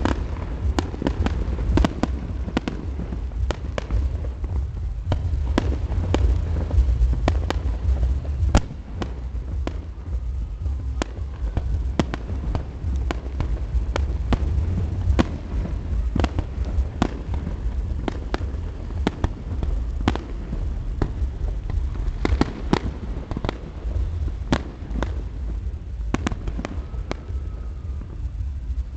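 Fireworks display: a continuous, irregular string of sharp bangs and crackles over a steady low rumble.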